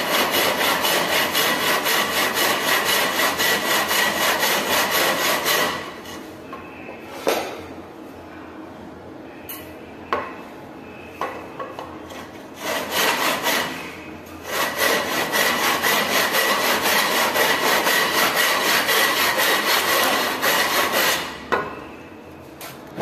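Hand saw cutting through wood in quick, even back-and-forth strokes. Two runs of sawing, each several seconds long, are split by a pause of about eight seconds that holds a few light knocks.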